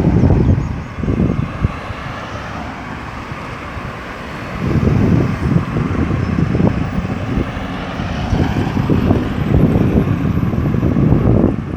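Road traffic of cars and trucks going around a busy roundabout, with wind buffeting the microphone. It eases for a few seconds near the start, then grows louder again.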